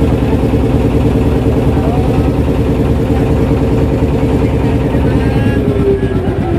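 Wooden fishing boat's engine running steadily as the boat travels. Its pitch drops slightly near the end.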